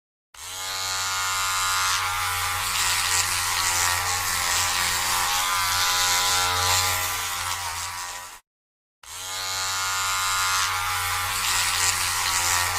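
Electric hair clipper switched on and buzzing steadily, a dense pitched hum. About eight seconds in it is switched off, then switched back on about half a second later.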